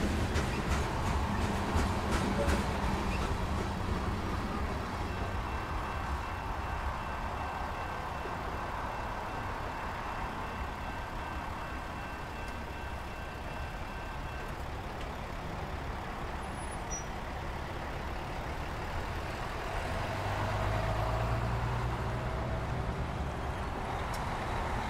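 Slow-moving CN freight train's boxcars rolling past: a steady rumble with sharp clicks of wheels on the rails in the first few seconds, and a deeper low rumble swelling near the end.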